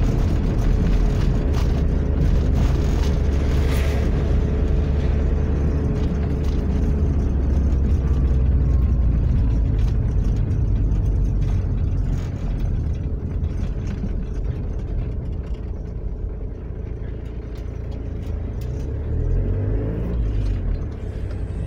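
Engine and road noise inside a moving vehicle's cab: a steady low rumble that eases off about halfway through as the vehicle slows, picking up again near the end.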